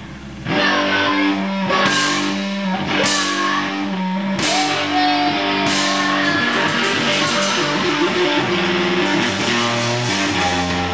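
Electric guitar and drums playing loud live rock, starting about half a second in, with several crashes in the first six seconds.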